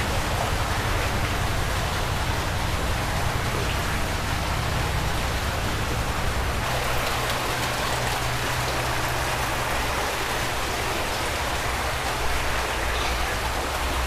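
Steady rush and splash of water in a large fish pond, kept flowing by a pump that runs around the clock, with a low steady hum underneath.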